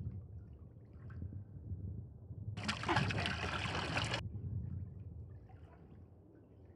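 A low steady rumble, joined about two and a half seconds in by a loud burst of rushing, hissing noise that lasts about a second and a half and cuts off abruptly.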